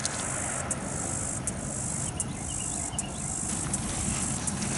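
Steady high-pitched insect chorus outdoors, with a few light clicks scattered through it.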